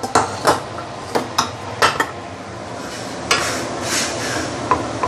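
Wooden spatula stirring cabbage and broth in a stainless steel pan, knocking against the pan in a series of sharp, irregular strikes over a steady hiss.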